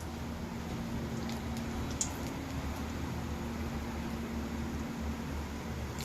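Methi bhajiya (gram-flour and fenugreek fritters) frying in hot oil in a kadai, a steady even sizzle, with a light click or two about two seconds in and a faint low hum underneath.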